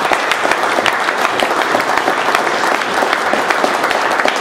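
Audience applauding steadily, a dense patter of many hands clapping in a large hall.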